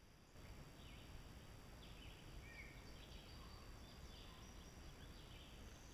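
Faint woodland ambience: a low, steady background rumble with several short, faint bird chirps scattered through it.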